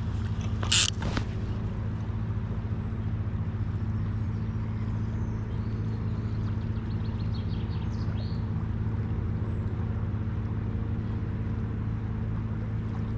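A steady low engine drone, unchanging throughout, with a short sharp noise about a second in and a faint run of rapid ticks around the middle.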